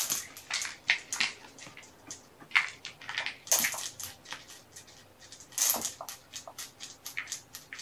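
Handling noise close to the microphone: an irregular string of sharp clicks, taps and rustles, with a couple of louder crackles about three and a half and nearly six seconds in.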